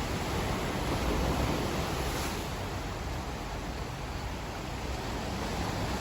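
Steady rushing of sea surf and wind on the microphone, with a slight swell about a second in.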